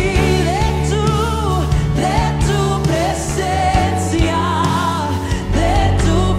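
Spanish-language Christian worship song: a voice singing long, gliding notes with vibrato over sustained instrumental backing with steady low held notes.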